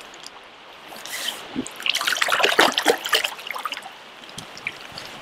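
Water splashing and running off hands in a river as a steelhead is released, over the steady rush of the river. The splashing is busiest between about two and three seconds in.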